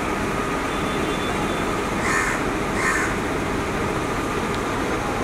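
A crow cawing twice, about a second apart, over a steady background noise.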